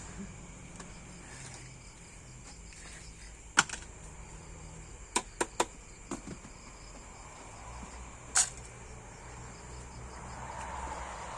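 Steady faint chirring of insects, crickets by the sound of the high thin band, broken by a few sharp taps or clicks: one, then three in quick succession, then a longer one near the end.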